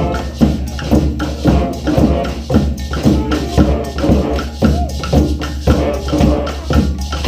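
Brass band playing in rehearsal: horns holding melody notes over a steady, even beat of hand percussion and drums at about two strikes a second.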